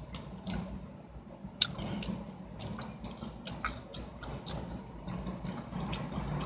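Soft wet squishing and scattered small clicks of sauce being poured and worked onto a fast-food sandwich, one sharper click about a second and a half in, over a faint low hum.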